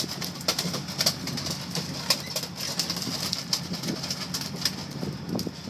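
Sportfishing boat's engines running steadily under a wash of wind and water, with scattered sharp knocks and clicks from gear and the landed fish in the cockpit.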